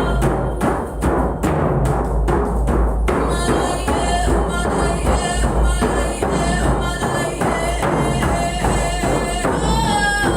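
Percussion-driven music with steady, evenly spaced drum beats; more layered pitched parts come in about three seconds in.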